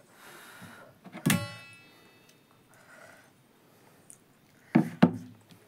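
Dishware at a meal: a single ringing clink about a second in, a faint sip from a ceramic soup bowl, then two sharp knocks close together near the end as the bowl is set back down on the table.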